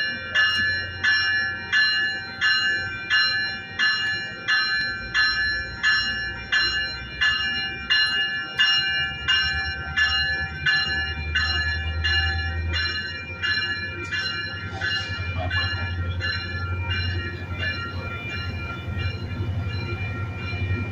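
A bell ringing in steady strokes about twice a second, loud at first and fading away after about 14 seconds, over the low rumble of a Metrolink commuter train rolling past the platform.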